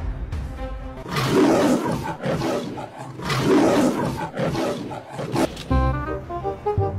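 Lion roaring: two long, rough roars and a shorter third, over music. A tune with clear notes takes over near the end.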